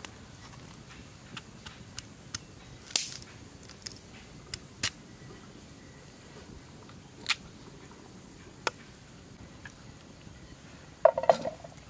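Kitchen knife cutting a firm fruit on a wooden cutting board: scattered sharp cuts and taps on the board, one every second or two. Near the end there is a louder short clatter.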